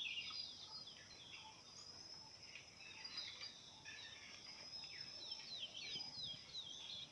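Faint birdsong: many short, quick chirps that slide downward, repeated throughout. Behind them a thin, steady high tone comes and goes.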